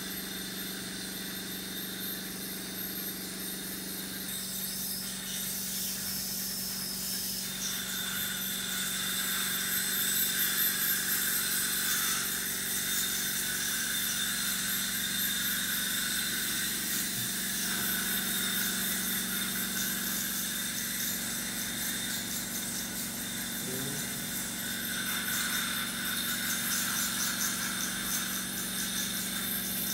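Dental suction running steadily, a low hum under a wide hiss, growing a little louder about eight seconds in as the tip works at the patient's mouth.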